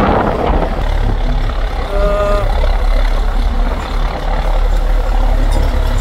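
Large engine or heavy machinery running with a steady low rumble. A brief pitched sound comes in about two seconds in.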